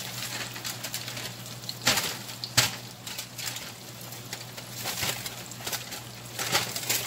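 Breaded fish fillet shallow-frying in hot oil in a skillet: a steady sizzle with fine crackling, and two sharper clicks about two seconds in.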